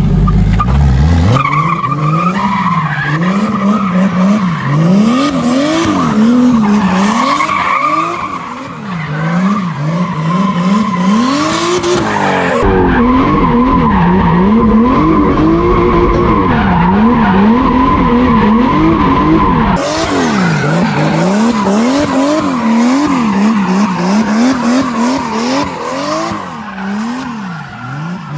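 BMW E30 with a turbocharged M52 24-valve straight-six drifting: the engine revs rise and fall again and again while the tyres squeal steadily. In the middle the sound turns duller and heavier in the bass for several seconds.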